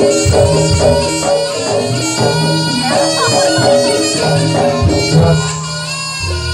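Live East Javanese jaranan gamelan music: a slompret reed shawm plays a shrill melody over a quick repeating pattern of struck metal notes and drums. A deep low note comes in near the end.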